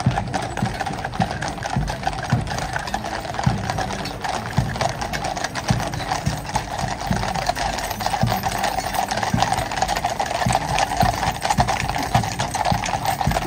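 Horses' hooves clattering on a paved road, a dense, unbroken run of clicks and knocks.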